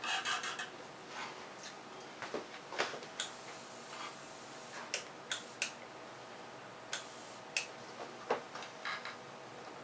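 Sparse, irregular sharp clicks and light taps, about a dozen, with a quick cluster right at the start.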